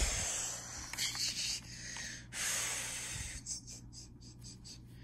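A child's mouth-made hissing 'shhh' imitating spraying or running water, in two long breathy pushes with a short break about two seconds in, trailing off after about three and a half seconds.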